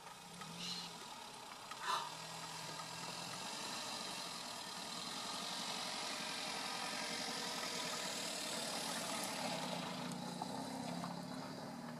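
A vehicle engine idling with a low steady hum, under a broad rushing noise that swells in the middle and eases off near the end. There are two short clicks in the first two seconds.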